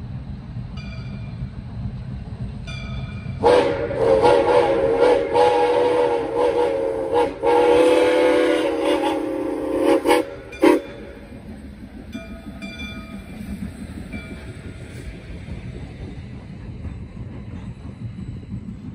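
Soo Line 1003, a 2-8-2 Mikado steam locomotive, blows its steam whistle for about seven seconds, broken by a few short gaps and ending in two quick toots. Throughout there is the low rumble of the locomotive running light toward and past, with steam hissing after the whistle stops.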